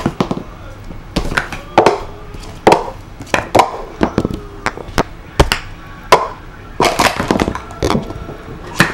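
Plastic sport-stacking cups clacking against each other and the mat as they are quickly stacked up and brought down, in irregular flurries of sharp knocks.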